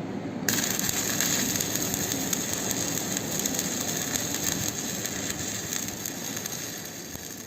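Welding arc struck about half a second in, then crackling and sizzling steadily as a hardfacing bead is laid on a rotor, fading near the end.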